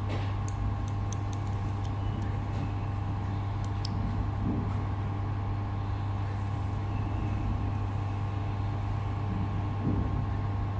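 Steady hum of a running hand-held laser cleaning machine, with a few faint clicks in the first couple of seconds as a hex key loosens the screws on the laser head.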